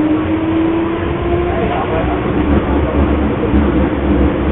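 Steady rumbling background noise heard over a telephone line. A faint hum slowly rises in pitch through the first second or so, then a low throbbing rumble takes over.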